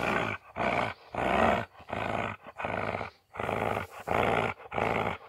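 Dog growling in short repeated bursts, about two a second, while tugging on a stick: a play growl during a tug-of-war game.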